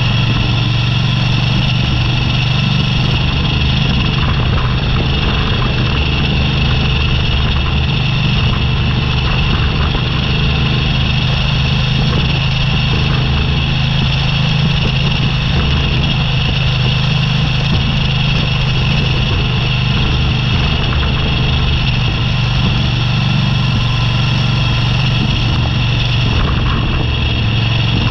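Motorcycle engine running steadily under way on a gravel road, a constant low drone with road noise and no change in speed.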